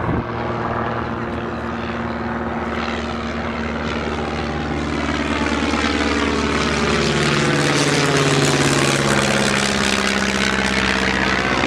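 Propeller-driven light aircraft engines running. One plane grows gradually louder, with its engine tone shifting slightly in pitch as it passes, loudest about eight seconds in.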